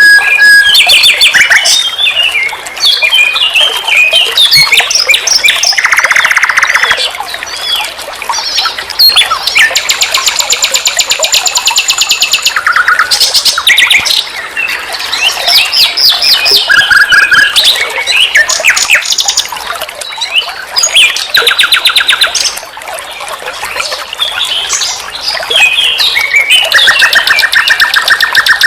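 Nightingale singing a long, varied song: fast trills of rapidly repeated notes alternate with chirps and whistled slurs, in phrases separated by brief pauses.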